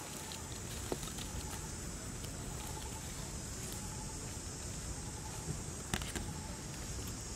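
Outdoor ambience: a steady high-pitched insect drone over a low rumble, with a faint broken chirping and a few soft clicks, about a second in and about six seconds in.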